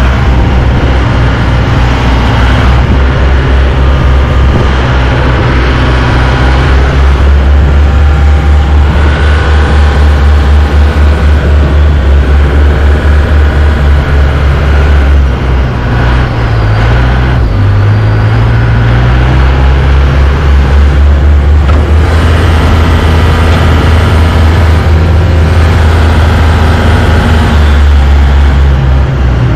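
Towboat's engine running steadily under load while towing a large motor yacht on a line. The engine note dips and climbs back about halfway through.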